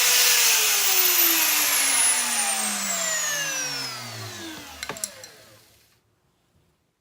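Router motor switched off and spinning down: its high whine falls steadily in pitch and fades over about five seconds, with a sharp click near the end.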